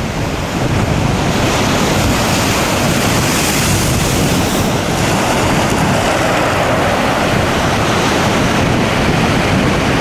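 Storm waves breaking and washing up a shingle beach: a loud, continuous rush of surf with no let-up.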